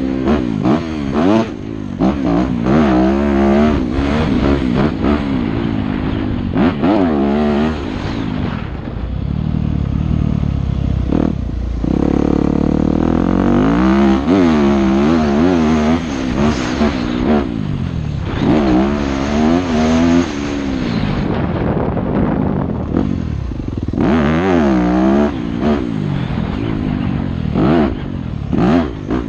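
Yamaha YZ250F four-stroke motocross bike ridden hard on board, its engine revving up and dropping back again and again through jumps and corners. There are a couple of brief lulls where the throttle is shut off.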